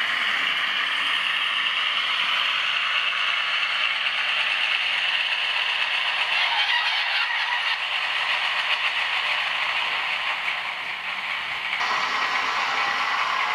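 Model diesel locomotive running on layout track, a steady mechanical whirring and clattering. The sound changes abruptly about twelve seconds in.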